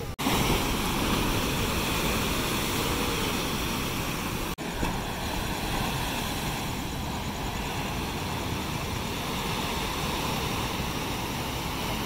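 Large waves breaking on a rocky shore: a steady, heavy rush of surf. The sound cuts out for a split second twice, at the start and about four and a half seconds in.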